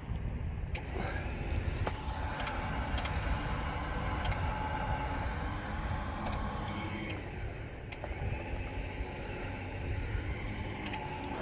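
Badland Apex 12,000 lb electric winch motor whining as it reels in cable under load, pulling a car. It starts with a click about a second in, runs for about six seconds, stops briefly, then runs again, over a low steady rumble.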